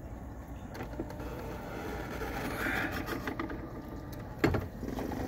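Jobo ATL2 Plus rotary film processor running: a steady low motor hum with a few mechanical clicks about a second in, and a sharp knock about four and a half seconds in.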